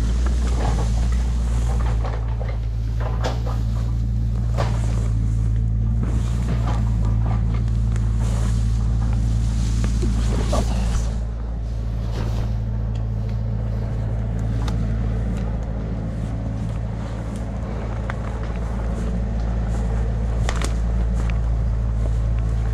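An engine idling steadily, a constant low drone, under the swish and rustle of tall grass and footsteps as someone pushes through it on foot.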